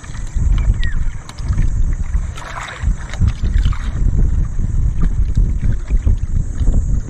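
Gusty wind buffeting the microphone on an open outrigger boat at sea: a loud, uneven low rumble that swells and eases, with no engine running.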